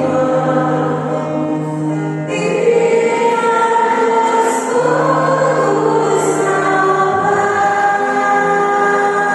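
Choir singing a slow religious song with long held notes and changing chords, over a soft accompaniment.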